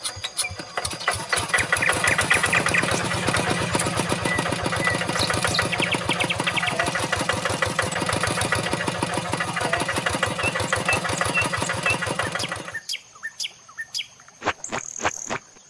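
Tractor engine sound for a toy tractor, running with a rapid, even beat and cutting off about thirteen seconds in; a few light clicks follow.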